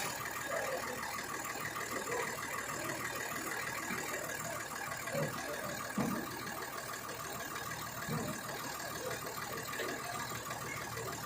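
Engine of a rice-threshing truck running steadily, with a fast even rhythm; the truck's driveshaft powers the thresher through a geared take-off.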